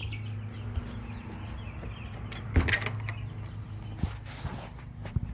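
Knocks and rubbing from a phone being handled close to its microphone, the loudest knock about two and a half seconds in, over a steady low hum. Faint peeping of young chicks dies away at the very start.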